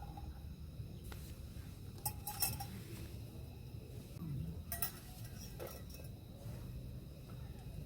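A few light clinks and knocks of kitchenware, about two seconds in and again near five seconds, over a steady low rumble.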